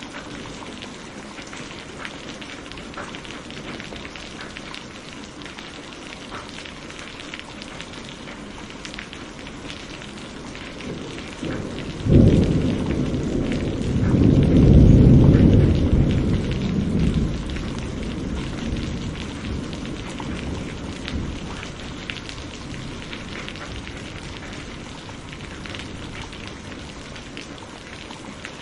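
Steady rain falling on a surface, with small drops ticking through the hiss. About twelve seconds in a clap of thunder breaks sharply and rolls on as a deep rumble for several seconds before fading back under the rain.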